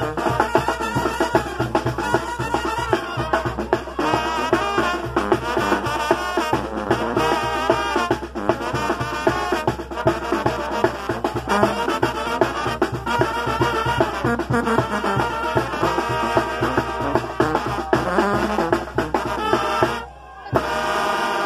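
A brass band playing lively dance music, with trumpets and trombones over a steady drum beat. The sound drops out briefly near the end.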